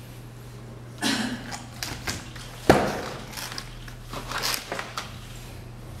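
Handling noises as one fidget spinner is set down and another picked up: several rustling scrapes, with one sharp knock near the middle, over a steady low hum.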